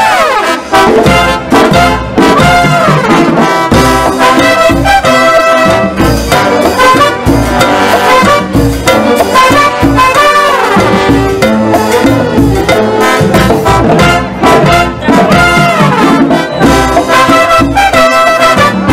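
Brass band of trumpets, trombones and sousaphones playing a tune together, with a steady low beat and several falling pitch slides from the horns.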